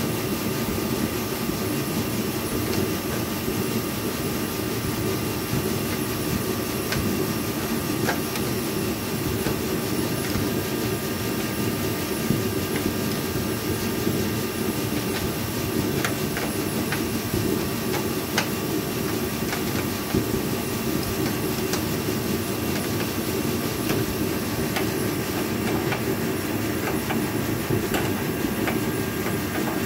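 A steady mechanical drone with a few steady tones in it, with a handful of faint sharp clicks from a small ratchet turning the bolt of a homemade rivnut-setting tool.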